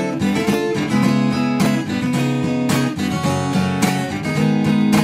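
Taylor cutaway steel-string acoustic guitar played solo, with chords strummed in a steady rhythm.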